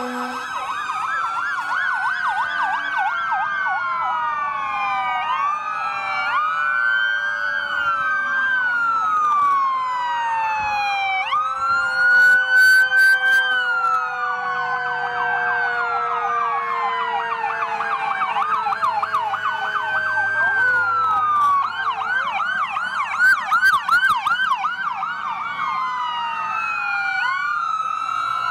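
Several fire-truck, fire-police and ambulance sirens wailing and yelping at once as the emergency vehicles pass, with one siren falling slowly in pitch throughout. Two bunches of loud, short horn blasts break in, near the middle and again later on.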